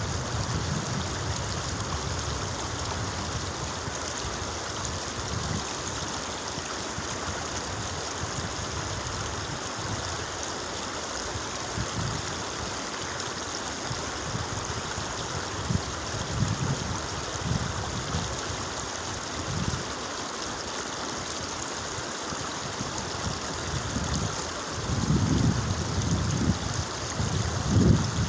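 Steady rush of running water, with wind buffeting the microphone in low gusts in the last few seconds.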